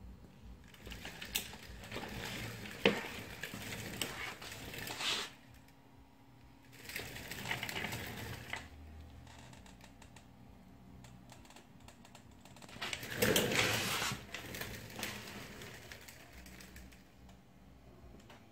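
Paintless dent repair tools working the steel skin of a car door: three spells of quick, light tapping and clicking, the first a few seconds long, the second shorter and the third about two seconds long, with pauses between them, as the crease is flattened.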